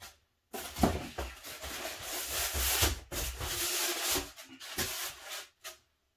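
Cardboard packaging being handled and unpacked, with a long run of rubbing and scraping and a sharp knock a little under a second in.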